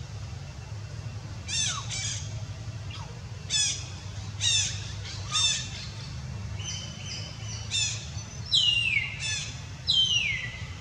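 A scattered series of about nine short, high-pitched squawking animal calls, the last two longer and sliding down in pitch, over a steady low background rumble.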